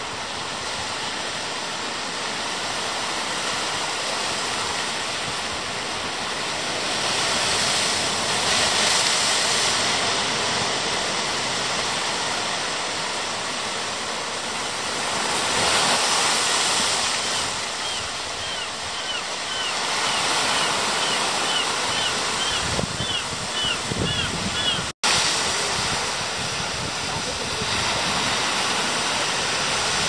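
Steady wash of ocean surf on a beach. From about halfway through, a run of short high-pitched chirps repeats about twice a second for several seconds.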